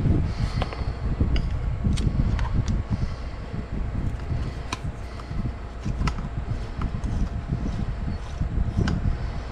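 Scattered sharp clicks, about six at irregular intervals, over a steady low rumble.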